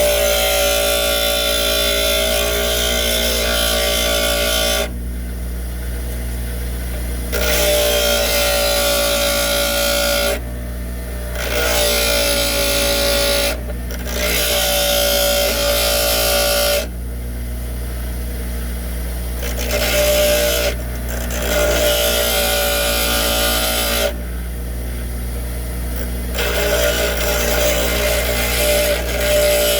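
Bench grinder running steadily while a steel drill bit is pressed against the wheel in repeated passes of a few seconds each, about seven in all, grinding the broken tip back into a cutting point.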